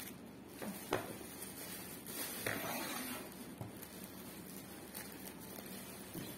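Plastic courier mailer bag crinkling and rustling as it is gripped and handled, with a few sharp crackles and a louder rustle a couple of seconds in. Near the end, scissors start to cut into the plastic with small snips.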